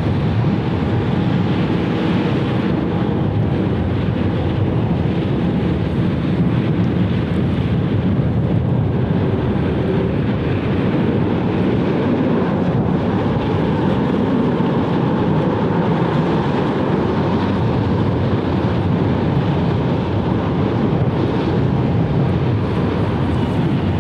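Steady jet engine noise from an airliner on the airfield, holding an even level throughout.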